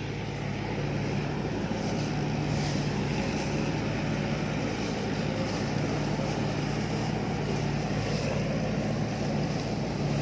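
Rice combine harvester's engine running steadily, a constant-pitch low drone that grows a little louder over the first couple of seconds.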